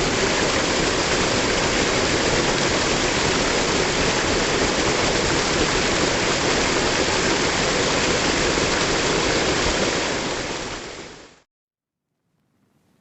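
Waterfall: the steady, dense rush of falling water, fading out to silence near the end.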